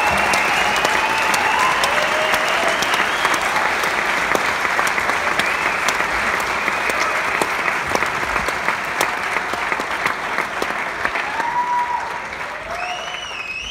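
Audience applauding, with cheers and a couple of whistles on top; the applause starts dying down near the end.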